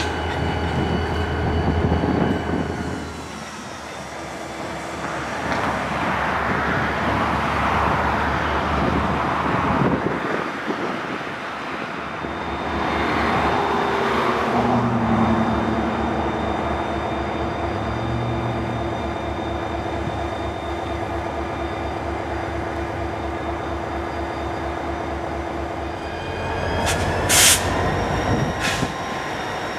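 Diesel freight locomotive's engine running with a steady low throb, with freight cars rolling by on the rails. Near the end come a few short, sharp noises.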